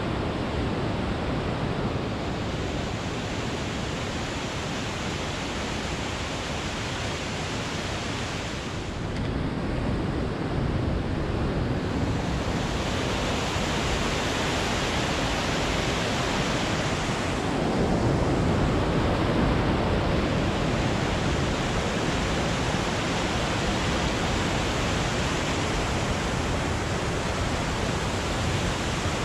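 Steady rush of whitewater from a mountain creek cascading through a rocky gorge. It grows louder partway through.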